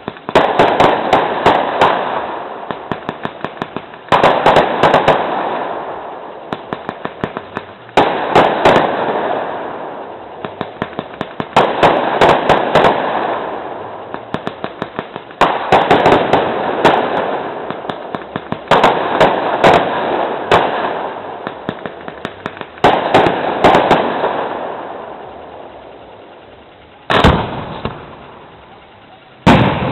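Fireworks display going off in salvos about every four seconds: each salvo is a burst of sharp bangs and a rapid run of cracks that fades away in crackling. Near the end come two single heavy bangs.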